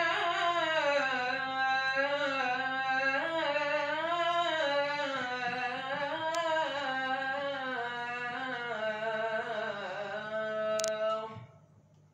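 A man reciting the ezan, the Islamic call to prayer, in one long ornamented phrase, his voice winding up and down in slow melismatic runs before stopping about eleven seconds in. A steady low hum sits underneath.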